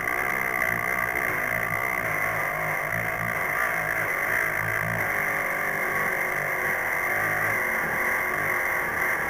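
Handheld high-speed rotary tool running with a steady high whine while its bit grinds a workpiece, with an uneven low rumble under the whine.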